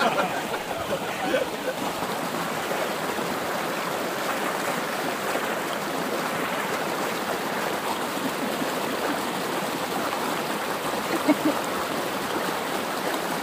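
A small creek running over rocks, a steady, even rush of flowing water.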